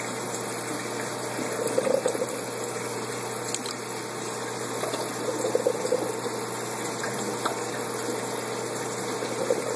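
Water running steadily in an aquaponics fish tank system, with short louder splashy surges about two seconds in, around five and a half seconds and near the end.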